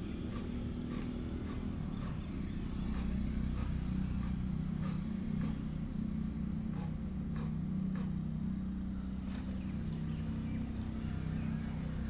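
Steady low engine-like rumble and hum running throughout, with scattered faint clicks.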